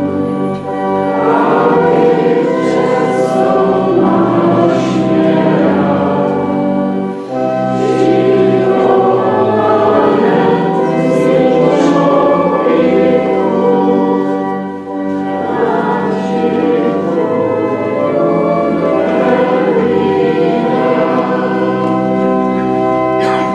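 Congregation singing a Czech hymn with organ accompaniment, the opening hymn of the Mass, in steady phrases with short breaks about 7 and 15 seconds in.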